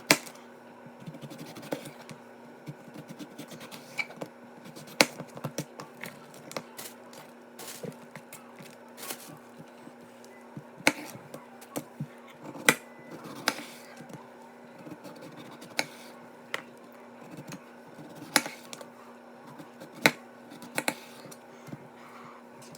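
Irregular sharp clicks and taps, a second or two apart, over a steady low hum.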